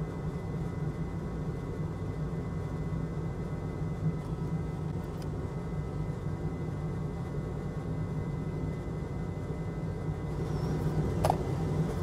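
Steady low machine hum and rumble with a few faint constant tones, and a single faint click near the end.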